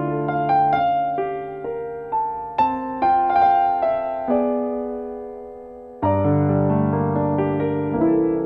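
Solo piano playing slow, gentle chords with single notes picked out over them, each struck note ringing and fading away; a new, fuller chord is struck about six seconds in and another near the end. It is an instrumental passage of a gospel worship song, with no singing.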